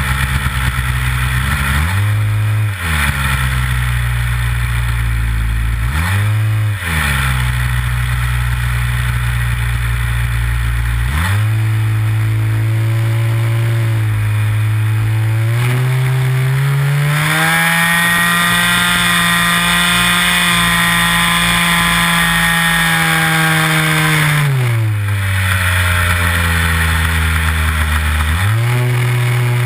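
Nitro glow engine of a Big Stik 60 RC plane running with its propeller, heard from a camera mounted on the plane. Its pitch swings briefly up and down twice in the first seven seconds, steps up about a third of the way in, climbs to its highest note around the middle and holds there, then drops back, with one more brief swing near the end.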